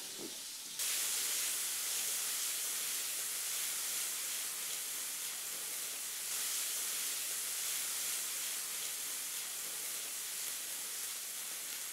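Peeled shrimp frying in melted butter in a nonstick pan: a steady sizzling hiss that gets louder about a second in. The shrimp have been drained dry, so they fry in the butter alone.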